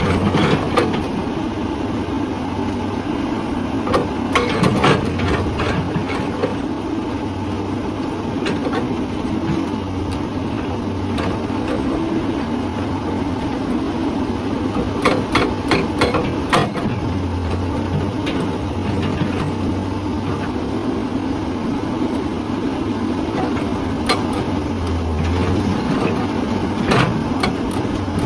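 Hyundai excavator's diesel engine running steadily, broken a few times by short runs of sharp knocks: around four seconds in, in the middle, and near the end.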